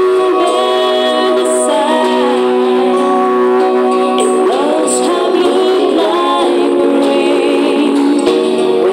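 Music with a singing voice over long held chords.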